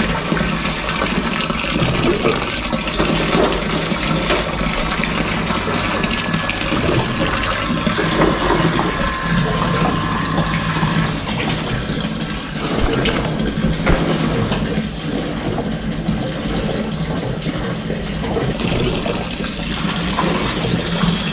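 Water draining in a steady stream from the outlet fitting of a pressurised solar water-heater tank and splashing into a plastic bucket, with a steady low hum underneath.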